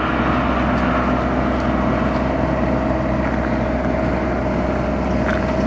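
Steady engine hum of a parked motorhome, a low drone with a constant whine above it and no change in speed.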